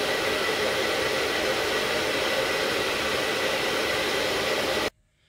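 A powerful hair dryer blowing steadily, heating a rusted, seized screw; it stops abruptly near the end.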